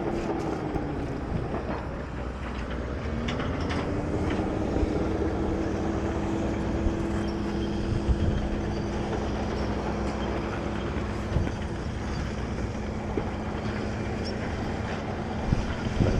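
A steady engine hum whose pitch drops and then climbs back once, about a second in.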